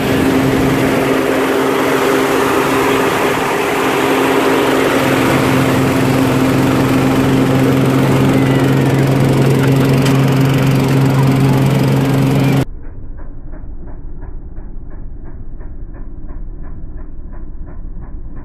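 Fire-brigade foam generator running: a steady engine-and-pump hum under a loud rush of spraying foam. About two-thirds of the way through it cuts off suddenly, and a quieter, muffled sound with an even pulse about four times a second follows.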